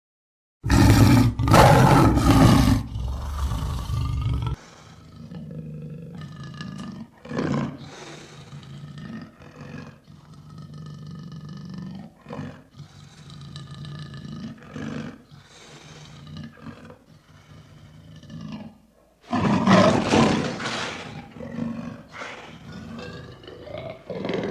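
Lion roaring: a loud roar lasting about four seconds starts just after a brief silence and cuts off abruptly. Quieter repeated grunting calls follow, then another loud roar near the end.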